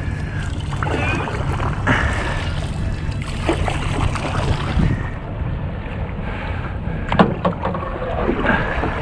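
Motorboat under way: a steady low engine rumble with wind buffeting the microphone and water rushing, and a sharp knock about seven seconds in.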